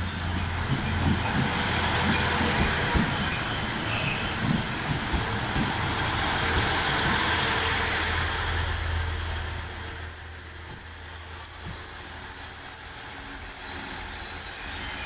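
JR East KiHa 110-series diesel railcar pulling into the platform: its diesel engine hums steadily under knocks from the wheels in the first few seconds. About eight seconds in, a steady high-pitched squeal sets in and the sound grows louder as the railcar passes close and slows to a stop.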